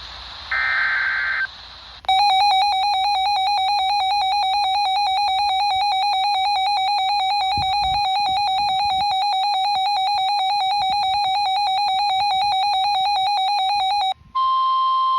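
NOAA Weather Radio alert sequence for a new warning. A second-long screech of the SAME digital header data is followed by a weather radio receiver's loud warbling electronic alarm for about twelve seconds. Near the end it gives way to a steady single-pitched warning alarm tone of about 1 kHz.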